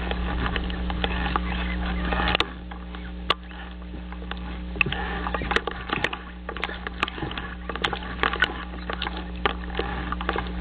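Scattered crackling clicks and rustling over a steady low electrical hum from an outdoor nest-camera microphone.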